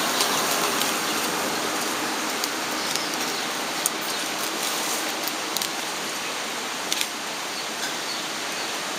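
Steady rushing background noise, with a few light crackles from a small clear plastic bag being opened and a feather pulled out of it.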